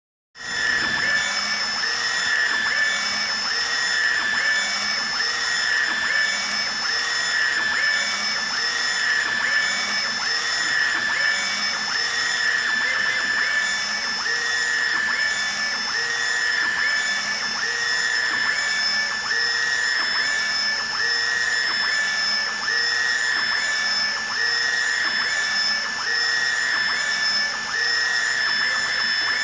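UV flatbed printer running as it prints onto medals. There is a steady mechanical whine, and a pattern repeats about once a second as the print-head carriage sweeps back and forth.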